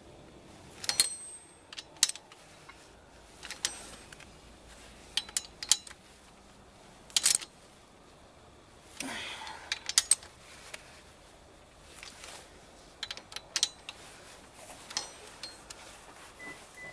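Socket wrench and extension clinking against a car's rear wheel hub and drum-brake backing plate: scattered sharp metallic clicks and clinks, some ringing briefly, with a short rustle in the middle.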